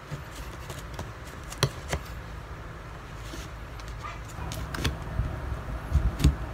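A cardboard relief-goods box being opened by hand: scattered knocks, scrapes and rustles of cardboard and tape, several sharp clicks among them.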